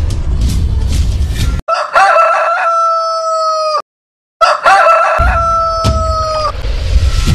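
Rooster crowing twice, each a long held call about two seconds long, with a brief dead gap between them. Background music with a heavy bass beat plays before the first crow and comes back under the second.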